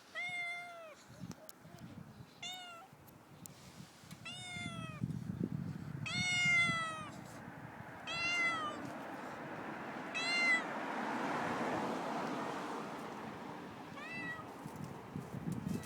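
Domestic cat meowing about seven times, each a short call that falls in pitch. The longest and loudest comes about six seconds in. A softer rushing noise without pitch swells between the later calls.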